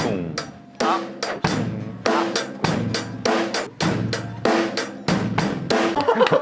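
Acoustic drum kit played with wooden sticks in a steady basic beat: bass drum and snare alternating in a 'kick–snare, kick-kick–snare' pattern.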